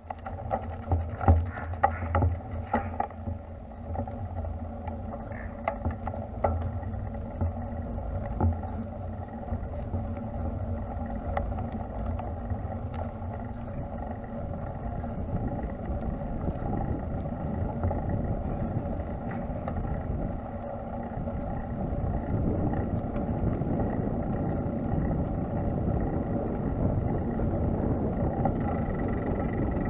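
Steady rolling drone of a small vehicle riding along paved paths, with wind on the microphone and a few sharp knocks in the first three seconds.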